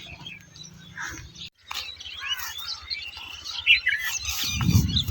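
Small birds chirping in many short calls. A brief low rumble comes near the end.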